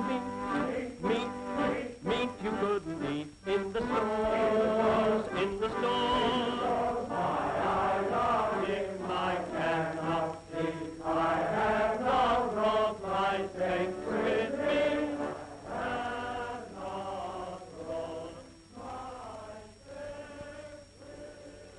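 Music: a slow melody of held, pitched notes that grows quieter near the end.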